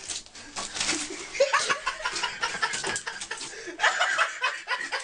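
A person laughing and snickering in short bursts.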